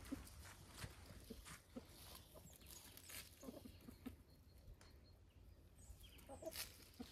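Chickens clucking faintly in short, scattered calls, with light rustles and taps in dry fallen leaves.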